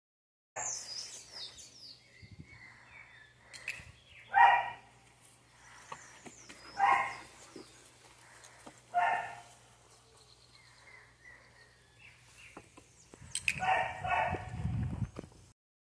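German Shepherd puppy barking: three single barks a couple of seconds apart, then a quick run of several barks near the end. Birds chirp in the background.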